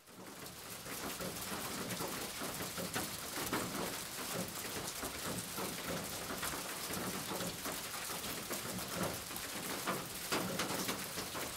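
Graphite pencil scratching on paper in short, irregular strokes while sketching.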